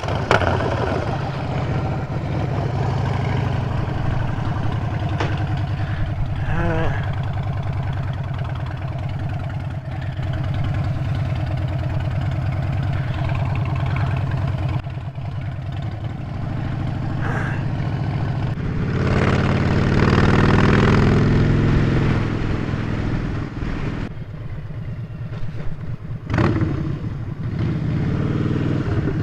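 Motorcycle engine running while riding, getting louder as it accelerates about two-thirds of the way through.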